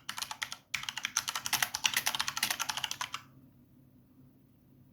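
Typing on a computer keyboard: a fast run of keystrokes lasting a couple of seconds, then it stops.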